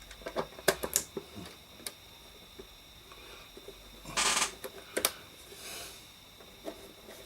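Scattered clicks and light knocks from handling a radio's plastic case and back panel, with a short scraping rustle about four seconds in.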